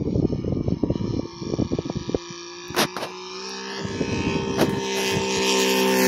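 Saito FG-60R3 three-cylinder radial engine of a radio-controlled Bearcat model in flight: a steady drone that grows louder in the second half as the plane approaches. Irregular low rumbles on the microphone over the first two seconds.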